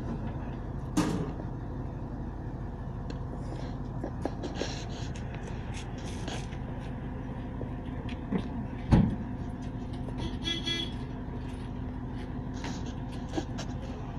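Truck crane's diesel engine running steadily while hoisting a boat in slings, with a sharp knock about a second in and a louder one about nine seconds in. A short pulsing high tone sounds about ten and a half seconds in.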